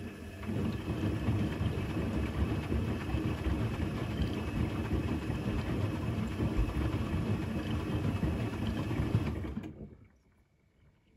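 Electrolux EWC1050 washing machine tumbling its drum during a rinse: the motor turns the drum steadily, then winds down and stops about ten seconds in.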